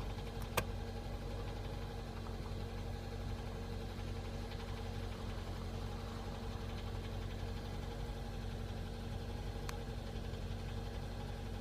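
Mitsubishi Colt engine idling steadily, run to show an engine knock the owner hears in it. Two sharp clicks stand out, one about half a second in and one near the end.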